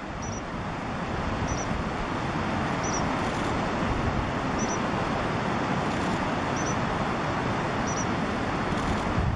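Wind buffeting the microphone: a steady rushing noise that grows a little stronger after the first couple of seconds. Through it, faint, very short high chirps from a small bird repeat about once every second or two.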